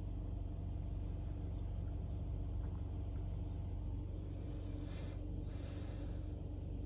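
Mercedes-Benz A180's M270 four-cylinder petrol engine idling steadily, heard from inside the cabin. It is warm, with coolant near 80 °C after the map-controlled thermostat was replaced.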